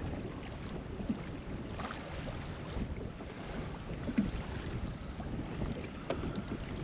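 Wind on the microphone over water around a fishing kayak, a steady low rumble with a few light knocks and taps.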